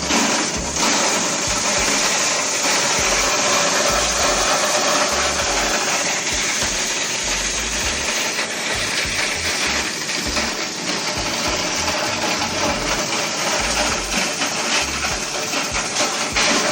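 Plastic shredder machine running steadily and chewing up a plastic helmet: a loud motor-driven grinding noise with constant crackling from the shredded plastic.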